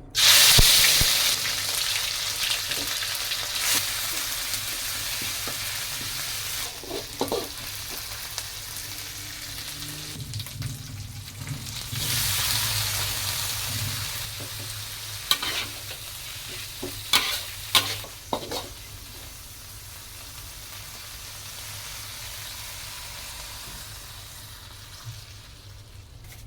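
Food going into hot oil in a pan, bursting into a loud sizzle at once and then frying steadily as it slowly fades, with a second swell of sizzling about halfway. A spatula stirs and knocks against the pan several times in the second half.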